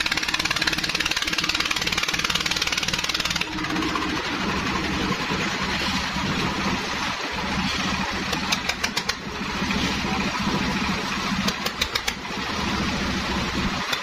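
Engine of a concrete mixer and lift machine running steadily under load. Its note drops and eases about three and a half seconds in. Short runs of rapid clattering come about eight and a half and again about eleven and a half seconds in.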